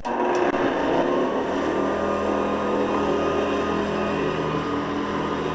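Hoover Guardsman commercial upright vacuum switched on: the motor comes on suddenly, spins up over the first second, then runs steadily with its brush roll turning.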